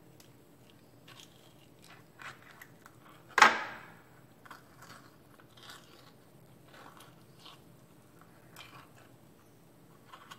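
Metal spoon scooping soft, ripe avocado flesh out of its skin, with faint scrapes and small taps. About three and a half seconds in, a single sharp clink with a short ring is the loudest sound.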